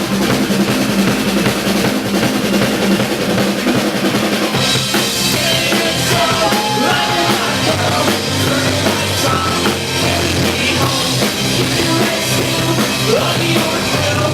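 Rock music with a full drum kit, bass drum and snare prominent; about four and a half seconds in the sound gets brighter and fuller as more instruments come in.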